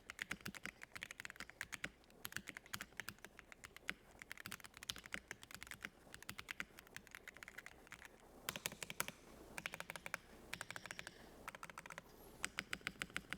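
Fast typing on a 60% mechanical keyboard with Wooting Lekker Hall-effect linear switches and PBT keycaps: quick runs of keystroke clacks broken by short pauses.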